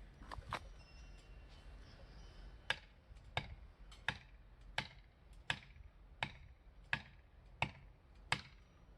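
Axe blows struck in a steady rhythm, about three every two seconds, nine in a row after two lighter taps near the start.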